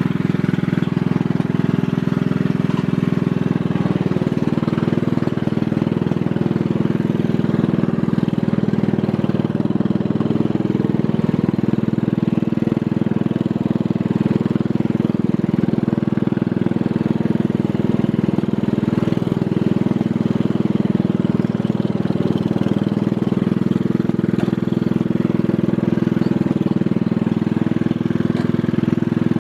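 Yard Machines riding lawn mower engine running steadily just after a cold start in cool weather.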